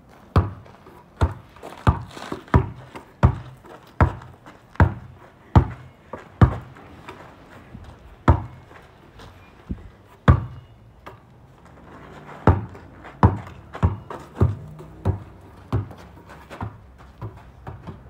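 A basketball being dribbled, bouncing hard and regularly a little more than once a second, with a couple of short pauses.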